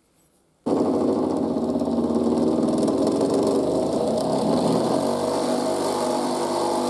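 Electric bench grinder running with a steady motor hum, a small steel knife blade being ground on its stone wheel with a hissing scrape. The sound starts suddenly just under a second in.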